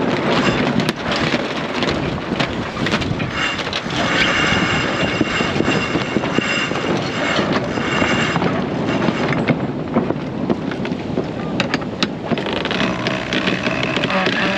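Wind buffeting the microphone and water rushing along the hull of a sailboat heeled under sail. A few sharp clicks near the end, from the crew working a sheet winch.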